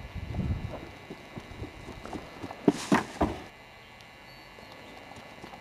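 Metal wind chime clinking a few times about three seconds in, with a short bright ring. Faint low thumps come in the first second before it.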